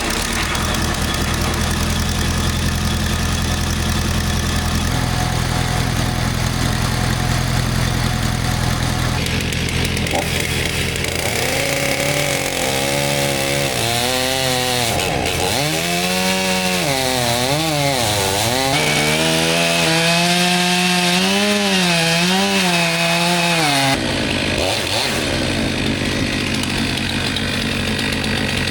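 Stihl 500i chainsaw cutting wood, its pitch repeatedly dipping and recovering under load for about twelve seconds before it stops. Underneath, the circle sawmill's engine runs steadily as it warms up.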